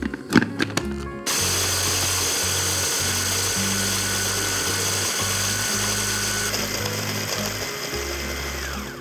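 Hand blender chopper attachment grinding dry biscuits into crumbs. A few clicks as the motor unit is pressed onto the lid, then the motor runs steadily with a faint high whine from about a second in, winding down at the very end.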